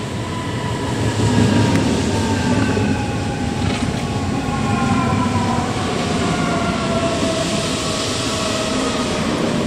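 S-Bahn electric multiple unit pulling into the platform and slowing: a whine from its electric drive falling slowly in pitch over the rumble of the wheels on the rails.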